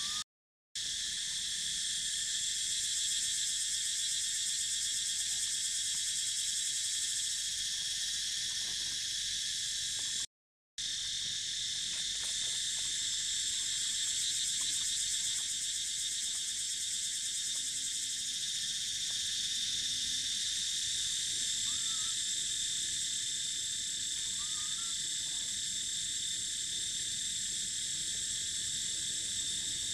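Steady high-pitched chorus of insects, a dense drone in several high bands. It cuts out completely twice for a moment, just after the start and about a third of the way in.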